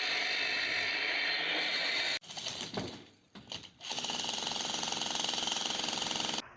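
Electric demolition breaker hammering concrete in rapid blows, heard in short stretches that start and stop abruptly.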